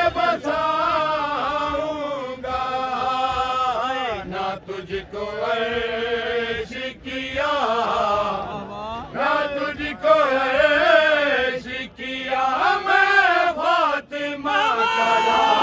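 A man's unaccompanied voice chanting a manqabat in praise of Imam Hussain, in long held, wavering notes broken by short pauses for breath.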